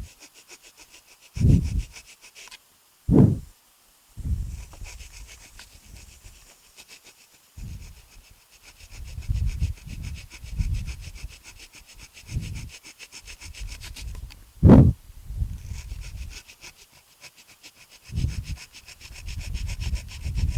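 Blade shaving plastic off a motorcycle handlebar control housing: a fast, steady scraping, broken by short low thumps and rumbles, several of them loud.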